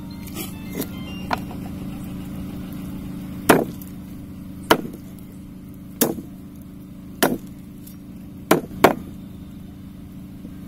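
Heavy cleaver chopping through meat and bone onto a wooden chopping board: about seven sharp strikes roughly a second apart, the last two in quick succession, with a few lighter taps near the start. A steady low hum runs underneath.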